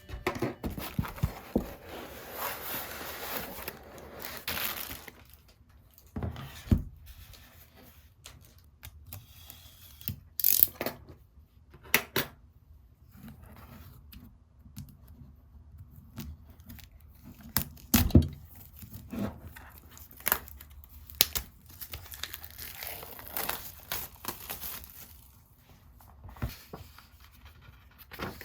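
Handling noises: stretches of crinkling and tearing, like packaging being opened, broken by scattered knocks and clicks.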